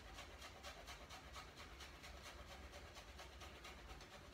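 Ginger root grated on a metal box grater: faint, even scraping strokes, about four a second.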